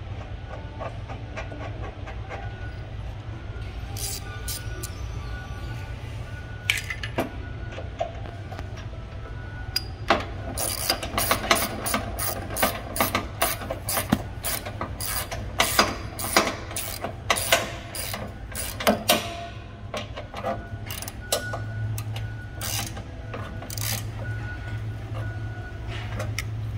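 Ratchet wrench clicking and metal parts clinking as a wheel's axle bolt and spacer are fitted and tightened on a mobility shopping cart. The clicking comes in quick irregular runs, thickest through the middle, over a steady low hum.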